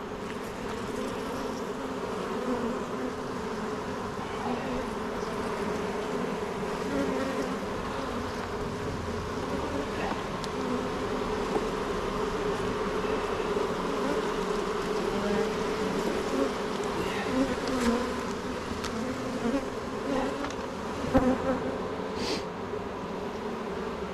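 Honeybee colony humming steadily from an open hive during an inspection. A couple of light knocks come near the end.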